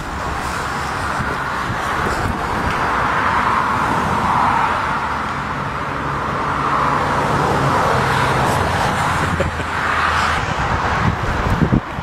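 Boeing 757's twin jet engines running at power as the airliner goes around and climbs away low overhead, a steady rush with a low rumble. Gusts of wind hit the microphone near the end.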